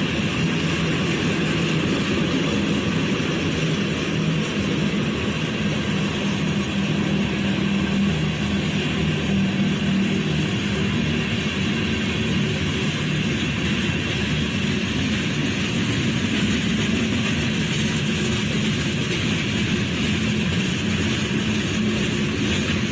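Norfolk Southern freight train's covered hoppers and tank cars rolling past, a steady low rumble of steel wheels on the rails.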